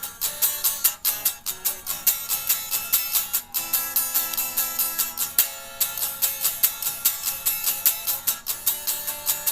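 Guitar strumming chords in a steady, quick rhythm. About halfway through, one chord is left to ring for around two seconds, then the strumming picks up again.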